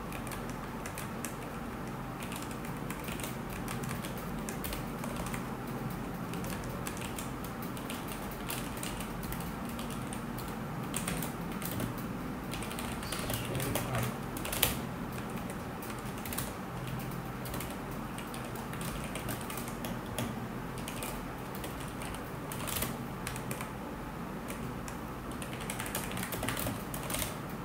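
Typing on a computer keyboard: irregular runs of keystroke clicks with short pauses, over a steady low hum.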